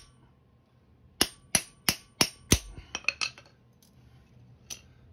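Hammer striking a hammer-type lug crimping tool five times in quick succession, about three blows a second, to crimp a connector onto coated steel cable. A few light metallic clinks follow as the tool is handled.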